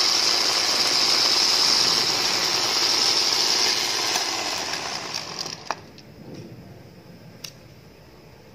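A 12-volt electric winch running, a steady mechanical whine of its motor and gears that eases slightly, then cuts off with a sharp click about five and a half seconds in.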